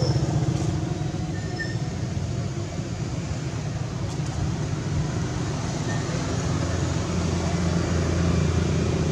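A motor engine running steadily, a continuous low drone with a few faint high chirps over it.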